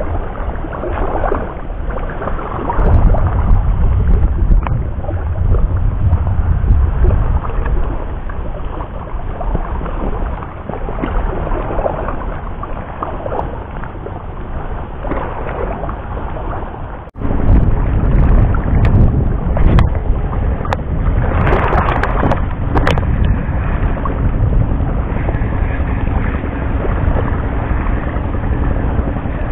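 Wind buffeting the camera microphone in gusts, with a short break just past halfway.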